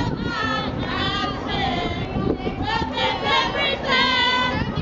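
A group of women singing a song together in high voices.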